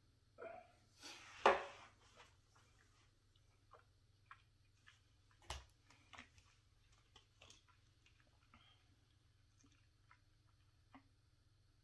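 A man sipping neat whisky from a tasting glass: a slurp and breath about a second and a half in, then faint wet mouth clicks as he swishes it over his palate, with one sharp tap midway as the glass is set down on the stone tabletop.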